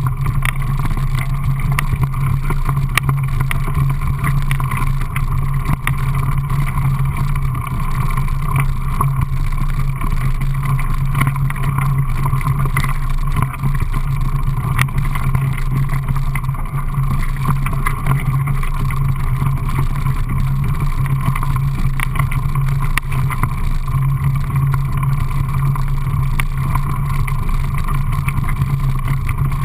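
Mountain bike riding down a dirt and gravel trail: steady rushing rumble of wind and tyre noise on a bike-mounted camera's microphone, with frequent small clicks and knocks as the bike rattles over roots and stones.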